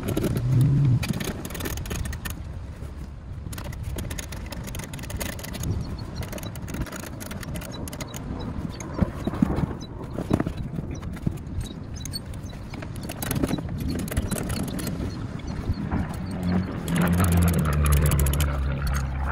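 Hand work on a car's plastic fender liner and its Torx bolts inside the rear wheel well: scattered clicks and scrapes over a steady low rumble, with a low hum joining in from about three seconds before the end.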